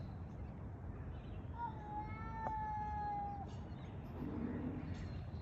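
A single drawn-out, high call held at a steady pitch for about two seconds, starting about a second and a half in, with a short click partway through.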